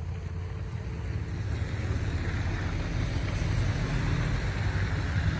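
Traffic on a slush-covered road: tyre hiss swelling as a vehicle draws closer, over a steady low rumble.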